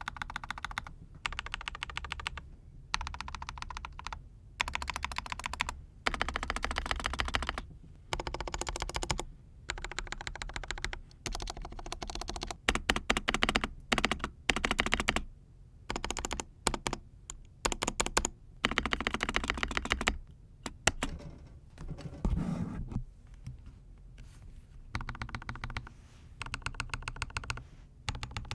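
Mechanical keyboard with BSUN Aniya Pink linear switches, its stabilized long keys pressed rapidly in bursts with short pauses between. For most of the stretch the stabilizers are unlubricated; in the last several seconds they have been lubricated.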